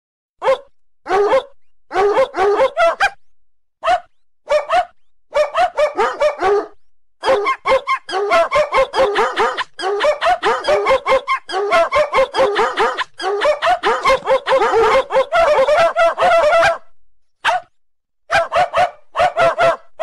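A ringtone made of dog barks sequenced into fast rhythmic runs. The short yaps come at shifting pitches, starting about half a second in, with brief pauses between the runs.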